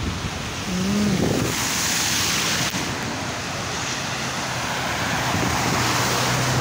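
Steady rushing hiss of rain and water on a wet street, with a low steady hum joining about four seconds in.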